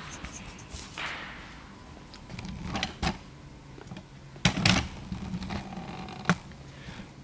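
A few scattered knocks and clicks, the loudest pair about four and a half seconds in and a sharp one near the end, over a low steady hum.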